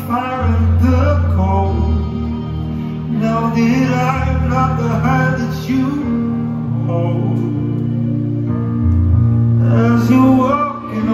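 Live amplified music: a man singing a slow song over a strummed acoustic guitar.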